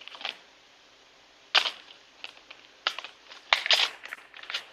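Acrylic paint containers being picked up and set down on a tabletop: a string of sharp, irregular clicks and knocks, the loudest about a second and a half in and again a little past three and a half seconds.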